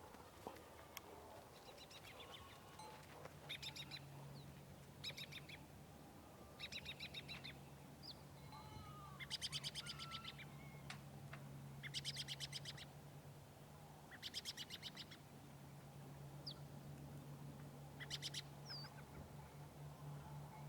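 Farm morning ambience: a bird gives short, rapid rattling chatter calls every two seconds or so, mixed with a few single chirps, over a low steady hum.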